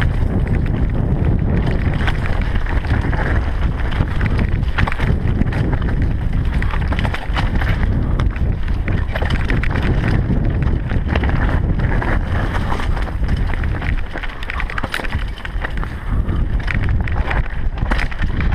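Wind buffeting the GoPro's microphone as a mountain bike descends loose rocky singletrack, with the continuous clatter and knocks of the bike rattling over stones and tyres crunching on gravel.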